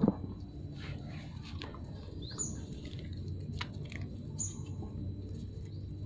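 Puppies suckling at their mother's teats: a few soft, sharp smacking clicks over a steady low hum, with two short high chirps about two and four seconds in.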